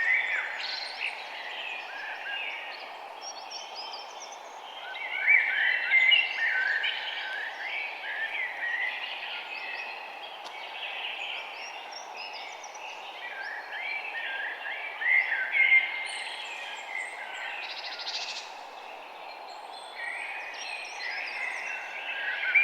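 Rainforest ambience: many birds chirping and warbling, overlapping in louder flurries several times over a steady background hiss.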